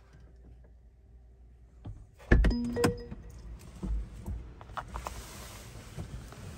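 Car door unlatching and opening with a loud clunk about two seconds in, with clicks and a short electronic warning chime that goes with the "Don't Forget Your Key" dashboard message. A few lighter knocks and a steady hiss follow.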